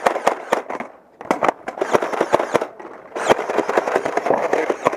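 Nerf blasters firing foam darts in rapid bursts: quick runs of sharp clicks and pops, three bursts with short gaps.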